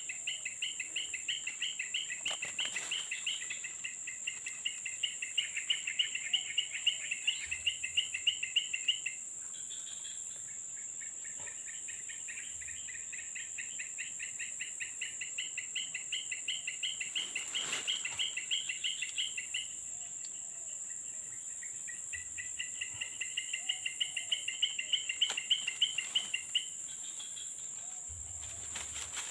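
Insects calling: a steady high-pitched drone throughout, with a rapid pulsing chirp that comes in three long trains, each building in loudness before it stops.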